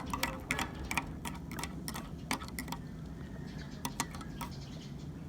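A teaspoon clinking against its container while brown sugar is stirred into a hot drink: quick irregular ticks, several a second for about three seconds, then a few scattered ones.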